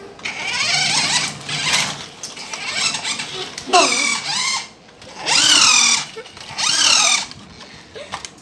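High whine of small electric RC car motors, rising and falling in pitch as they are throttled, in about four bursts of a second or so each.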